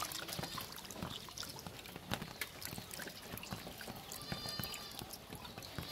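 Water splashing and dripping in a steel bowl as hands scoop up live tengra catfish fingerlings, with many small irregular splashes and water trickling off the wriggling fish.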